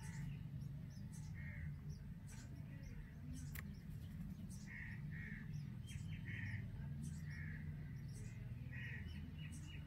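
Indian robin nestlings giving short begging calls, about ten of them spaced unevenly, some in quick pairs, over a steady low hum.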